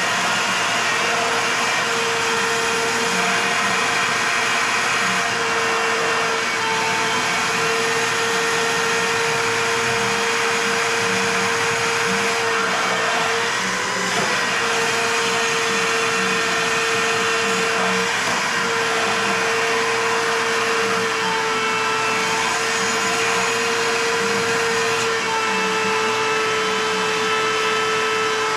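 Shop vacuum running steadily, sucking the engine coolant out of a snowmobile's bottom front cooler hose; its pitch wavers briefly about halfway through.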